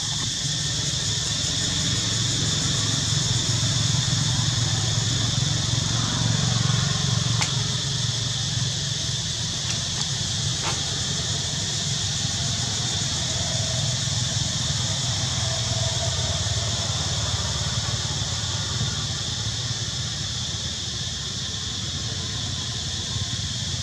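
Steady outdoor background noise: an even high hiss over a low rumble, with a few faint clicks about a third of the way through.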